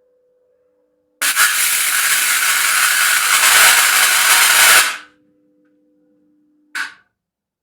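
Homemade microwave-oven-transformer arc welder striking an arc and welding with a loud, steady crackle for about four seconds, then a brief second arc strike near the end. A faint steady hum is heard before and between the arcs.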